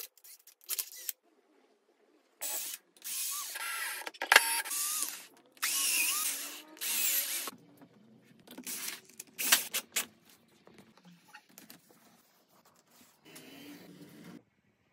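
Cordless drill driving screws into wooden curtain-rod brackets in a series of short bursts, the motor's whine rising and falling as the trigger is squeezed and released.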